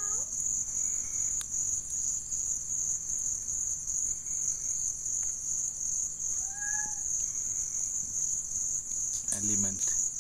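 Chorus of night insects chirring steadily at a high pitch with a fast pulse. One short call rises and falls about six and a half seconds in.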